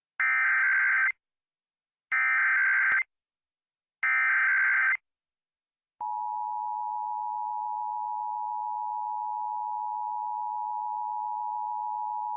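Emergency Alert System SAME header: three one-second bursts of warbling digital data tones, about a second apart, encoding a Required Monthly Test. About six seconds in, the steady two-tone attention signal (853 and 960 Hz) starts and holds.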